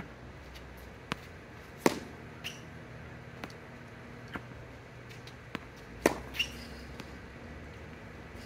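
Tennis balls struck by a racket and bouncing on a hard court: two sharp loud hits about four seconds apart, with lighter bounces and taps between them.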